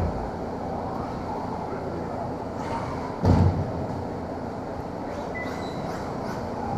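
Steady rumbling background noise of a large indoor hall, with one loud low thump a little over three seconds in.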